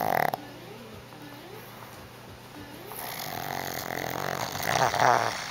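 Pug snoring in its sleep: a short loud snort right at the start, then a long snore that builds over about two seconds and is loudest near the end.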